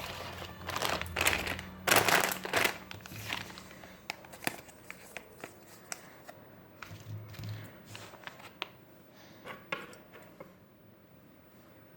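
Packaging being handled: crinkling and rustling, loudest in the first three seconds, then scattered light taps and small rustles that die away.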